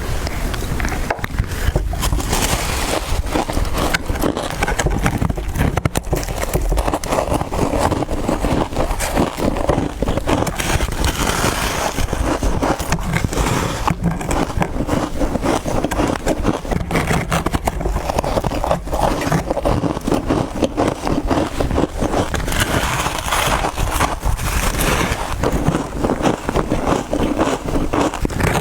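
Close-miked biting and chewing of soft freezer frost: a dense, unbroken run of crisp crunches.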